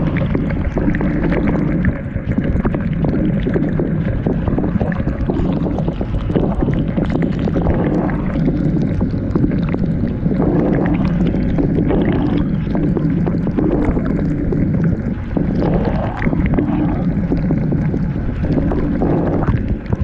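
Dishwasher running its wash cycle, heard from inside the tub: water spraying and splashing over the camera over a steady low rumble, swelling and easing every second or two.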